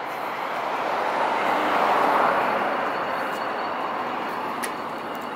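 Traffic noise from a vehicle passing on the street, swelling to its loudest about two seconds in and then fading away.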